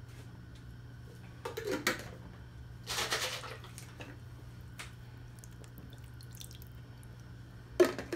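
Tomato sauce being stirred in a saucepan: soft wet, dripping sounds with a louder splash about three seconds in, then sharp knocks near the end, over a low steady hum.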